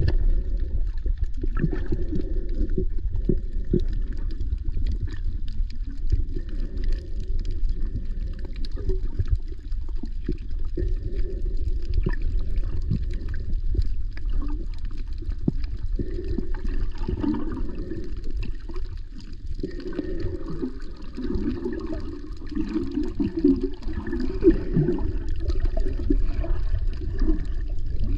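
Muffled underwater sound from an action camera held below the surface: a steady low rumble with sloshing and gurgling water moving around the camera, and scattered faint clicks.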